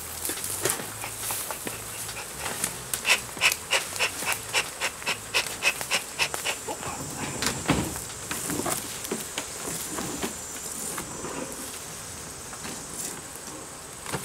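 Honeybees buzzing around an opened beehive, with a run of short crisp noises at about three a second for several seconds in the middle.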